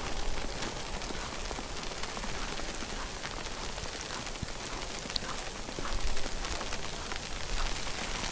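Snowstorm ambience: a dense, fine pattering of falling snow, with low wind rumble on the microphone swelling now and then.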